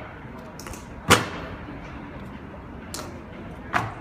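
Honour guards' hard-soled boots stamping on stone paving in a slow ceremonial march: two loud, sharp stamps, one about a second in and one near the end, with fainter clicks between.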